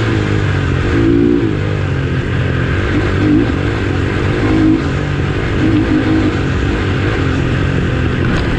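Motorcycle engine running continuously, its pitch rising and falling as it is revved.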